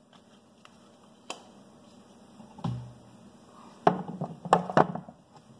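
Handling sounds of an olive oil bottle being capped and moved about: a light click, a dull thud about two and a half seconds in, then a quick run of loud, sharp knocks around four seconds in.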